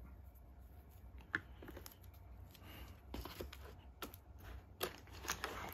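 A stack of 14-gram clay poker chips handled in the hand: faint rattling with scattered sharp clicks as the chips knock together, one about a second in and several more between three and five seconds in as the stack goes back into the case.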